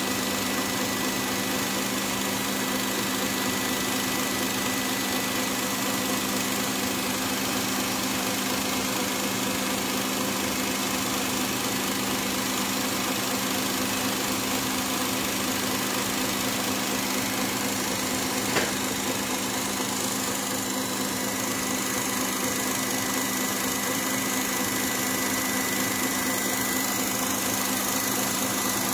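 KitchenAid stand mixer motor running steadily, beating heavy whipping cream that is past the whipped-cream stage and beginning to separate toward butter. A single sharp click about two-thirds of the way through.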